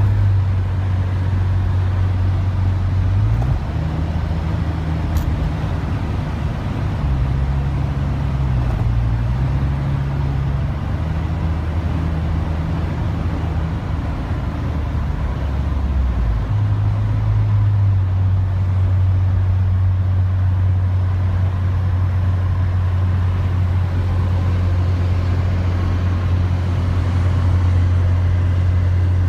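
Steady low engine-and-road drone heard inside a moving vehicle's cab on a wet highway, with a dump truck running alongside and tyre hiss over it. The pitch of the drone steps to a new level about three seconds in and again about halfway through.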